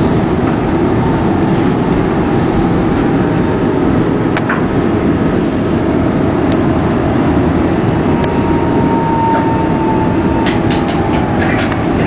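SEPTA Market-Frankford Line elevated subway car running on its track, heard from inside the car as a steady loud rumble of wheels on rail. A thin wheel squeal comes in about eight seconds in, and a quick run of sharp clicks follows near the end.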